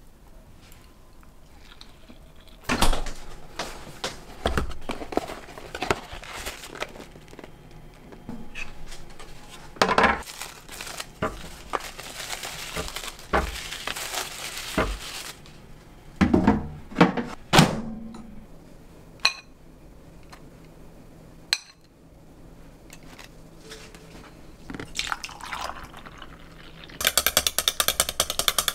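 Kitchen handling sounds: plastic wrappers rustling as pastries are unwrapped, items clattering on the counter, and liquid poured. Near the end, ice cubes clink rapidly against a glass as iced coffee is stirred with a wooden muddler.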